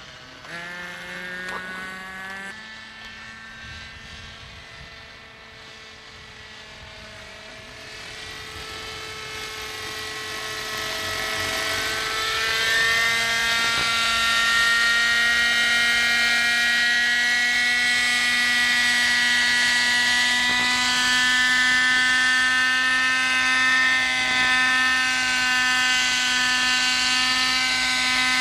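Radio-controlled model helicopter's Webra .50 two-stroke glow engine and coaxial rotors in flight, a steady whine with several pitches. It grows much louder over the first half as the helicopter comes closer, then holds steady as it hovers low.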